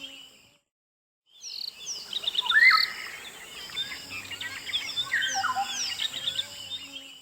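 Recorded birdsong: several birds singing at once with overlapping chirps, sliding whistles and quick trills. It fades out just after the start, breaks off into silence for under a second, then starts again and runs until it cuts off at the end.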